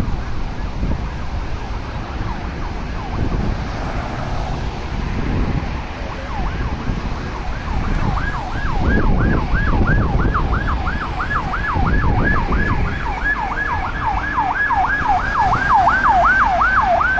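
Emergency vehicle siren in a fast yelp, about three rising-and-falling sweeps a second, growing louder over the last half. It sounds over a steady rumble of heavy road traffic.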